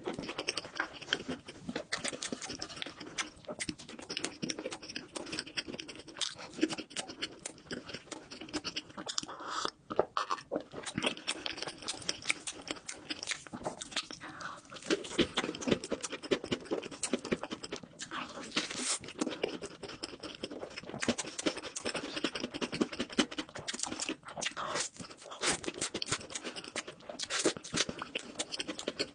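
Close-miked eating: continuous chewing with wet mouth sounds and crackly bites of crepe and chocolate bar snacks.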